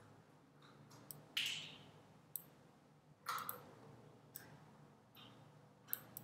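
Scattered clicks at a computer, mouse or keyboard, a handful of short sharp clicks a second or two apart, with a couple of softer short hissy sounds in between.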